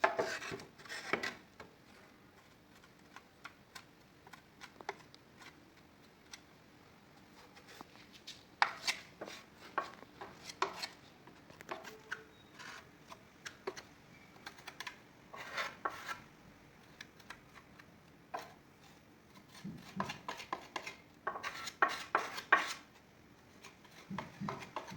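Hand-tool work on a chair: bursts of scraping and sharp clicks and knocks, in four or so separate bouts with quiet gaps between.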